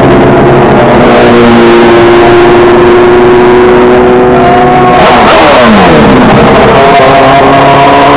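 Loud hill-climb race cars accelerating hard uphill, one behind the other. About five seconds in, one car passes close by with a rush of noise, and its engine note drops sharply in pitch as it goes away. The next car's engine then climbs in pitch as it comes up.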